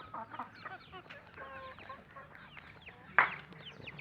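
Several birds chirping and calling in short, quick notes, with one louder, harsher call about three seconds in.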